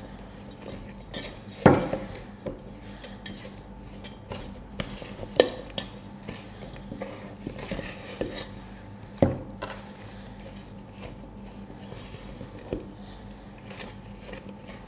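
Wooden spoon stirring a soft creamed butter-and-sugar mixture in a stainless steel mixing bowl, scraping and knocking against the metal with irregular small clinks. Three louder knocks, a couple of seconds in, about five seconds in and about nine seconds in, each leave a brief ring from the bowl.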